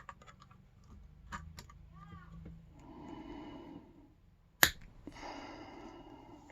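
Small metal clicks and scraping as a stubborn retaining clip on a Yale K300 padlock is worked at with a tool, with one sharp loud snap about four and a half seconds in.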